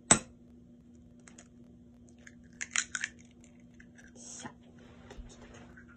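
An egg cracked with one sharp knock, then its shell crackling and snapping as it is pulled apart over the bowl about two and a half seconds later.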